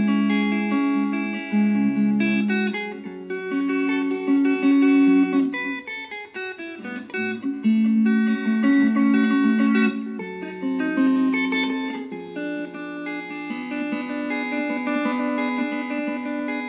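Fender Player Stratocaster HSS Plus electric guitar being played, with ringing chords and picked notes that change every second or so and a brief quieter spell midway.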